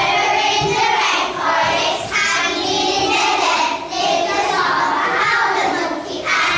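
A group of young children singing together in phrases of about two seconds with short breaks between them.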